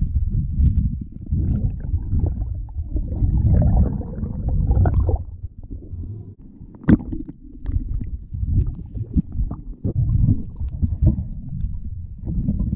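Muffled low rumbling of water moving against an underwater camera housing as a freediver swims among seaweed, with scattered sharp clicks and knocks, the loudest about seven seconds in.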